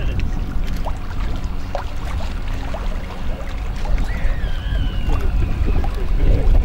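Outboard motor of a small inflatable rescue boat running with a steady low rumble. A brief high falling call comes about four seconds in.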